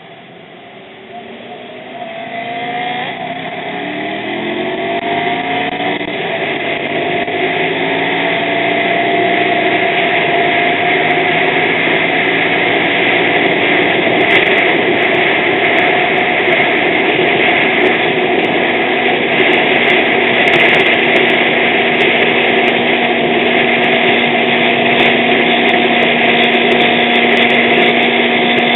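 Motorcycle engine accelerating, its pitch climbing in several successive sweeps as it goes up through the gears, then running steadily at speed under a loud even rush of wind noise.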